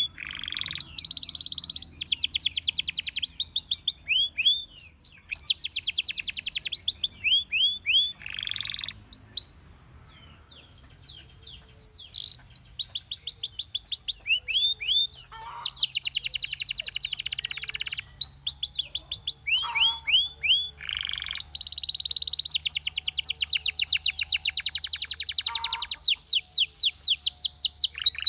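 Belgian canary singing in long runs of fast trills, each a rapid string of repeated high notes, broken by short glides and a pause of about two seconds a third of the way through.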